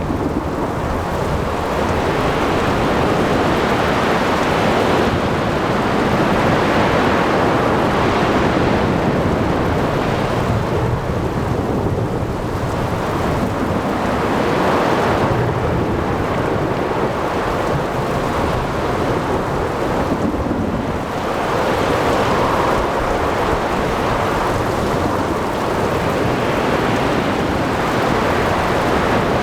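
Ocean thunderstorm ambience: rain, wind and waves with rumbling thunder, as one loud continuous wash that swells and eases every few seconds.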